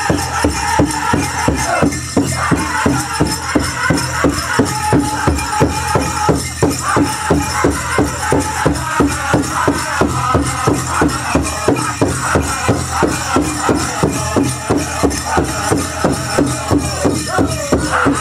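Powwow drum group performing a chicken dance song: voices singing over a big drum struck at a steady pulse of about two to three beats a second.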